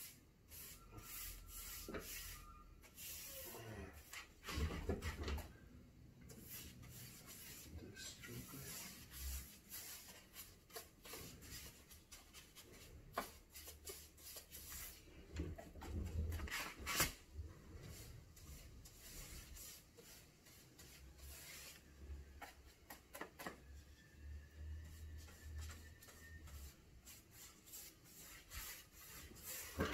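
Paintbrush stroking paint along the bottom edge of a wooden kitchen cabinet: faint, irregular brushing and rubbing sounds with scattered light scrapes.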